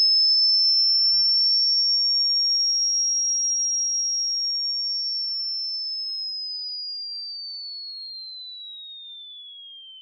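A single high-pitched electronic sine tone that rises slightly in the first few seconds, then glides steadily downward in pitch while fading.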